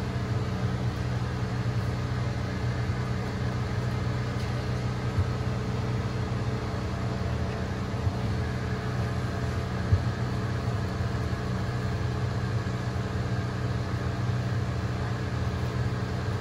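Steady low machine hum with a few steady tones, broken by a couple of faint clicks about five, eight and ten seconds in.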